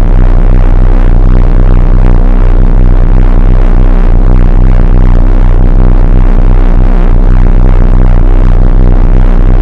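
Annoying loudspeaker pulse: a very loud, steady, low electrical buzzing hum with a fast, uneven throb running through it.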